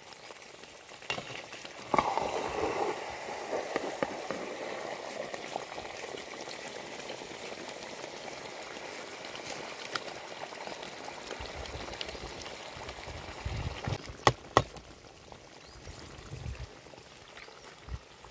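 Mutton gravy bubbling and sizzling in a pot, a steady hiss that sets in with a sharp knock about two seconds in. Near the end come two sharp knocks close together.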